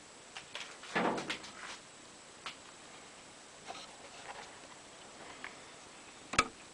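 Handling noise from a handheld camera being moved over an opened LCD TV: scattered light clicks and knocks, a short cluster about a second in and one sharp click near the end, over a faint steady hiss.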